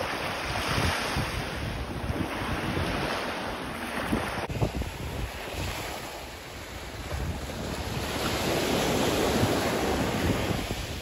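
Small waves washing onto a sandy beach, with wind buffeting the microphone. The surf swells louder about two-thirds of the way in and then eases.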